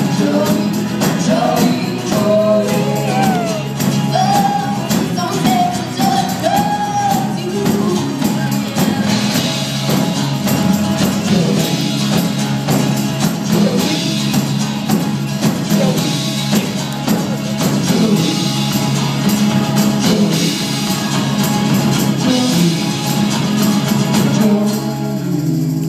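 A young rock band playing live, with drums, guitars and keyboard and several voices singing. The music thins out near the end.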